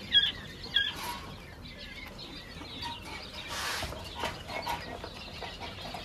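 Caged birds calling, with two sharp high chirps in the first second, then a short rush of noise like wing flapping about three and a half seconds in, and scattered softer calls around it.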